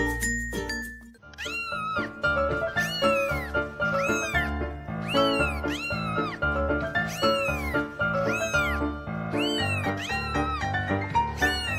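Cat meows repeated about two a second in a steady rhythm, each rising then falling in pitch, over background music. They start about a second in.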